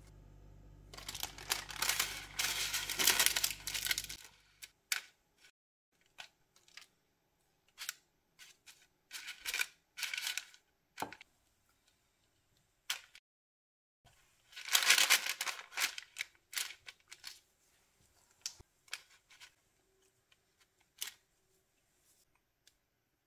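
Parchment paper rustling and crinkling in two bursts, the first about a second in and the second just past the middle, with scattered light taps and scrapes between.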